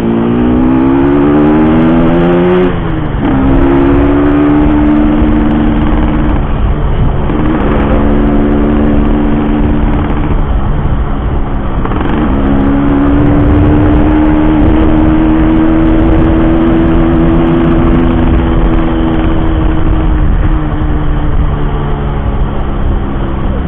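Yamaha RX-King's single-cylinder two-stroke engine under way. The revs climb and drop sharply about 3, 7 and 12 seconds in as it shifts up through the gears, then hold steady at cruising speed for several seconds before easing off near the end.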